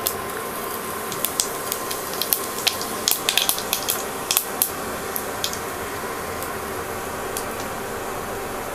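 Cumin seeds sizzling in hot oil in a pan for a tadka: a steady hiss with many sharp crackles through the first few seconds, thinning to a few after that.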